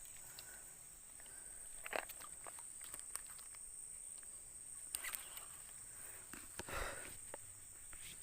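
Steady high-pitched insect drone, with a few short rustles and knocks about two, five and seven seconds in.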